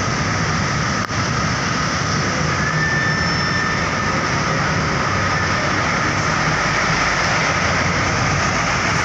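Steady noise of heavy road traffic passing close by: engines and tyres of buses and trucks, with no horn.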